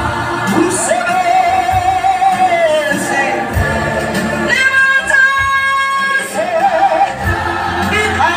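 Large mixed church choir singing a Zulu hymn, women's and men's voices together, holding one long chord a little past the middle.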